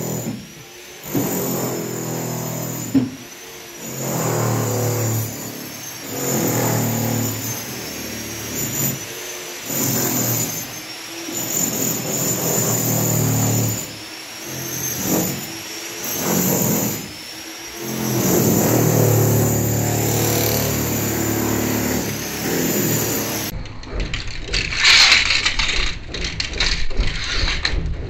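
Background music in phrases a second or two long, which cuts off suddenly about 23 seconds in. It is followed by irregular clicking and scraping handling noises.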